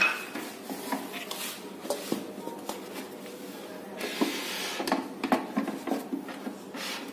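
Stainless steel mixer-grinder jar being set onto its plastic base and its plastic lid fitted: scattered light clicks and knocks, with a brief rustle about four seconds in. The motor is not running.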